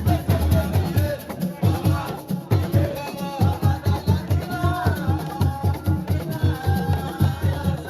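Loud music with a fast, steady drum beat and a singing voice over it.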